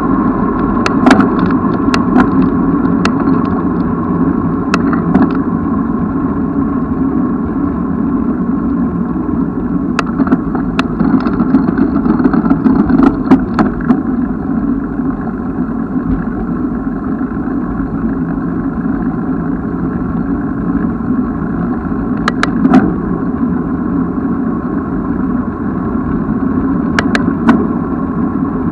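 Steady wind and road noise from a bicycle being ridden, with scattered sharp clicks and rattles.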